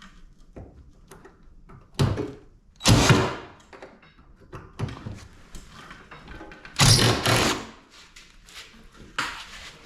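Metal clanks and rattles from an air conditioner's sheet-metal casing being pried and pulled apart by hand. There are three loud clanks about two, three and seven seconds in, the last two rattling on for about half a second, with small clicks and taps between them.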